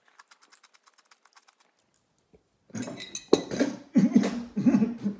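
Faint, fast crackling of a mouthful of bread-and-butter pickle chips being chewed. Then, almost three seconds in, a run of loud gagging coughs from a man close to throwing up on pickles.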